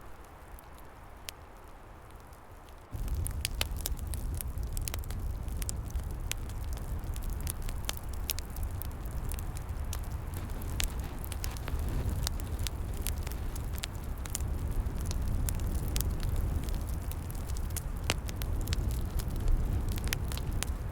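Wood fire crackling with frequent sharp pops and snaps. About three seconds in, a loud low rumble suddenly comes in under the crackling and stays.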